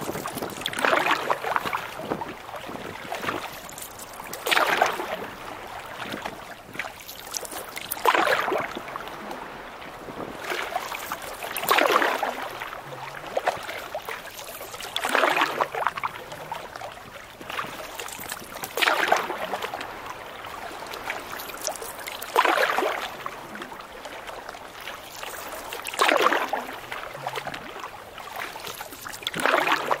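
Canoe paddle strokes in choppy water: a rushing splash about every three and a half seconds, nine in all, with a steady wash of water between strokes.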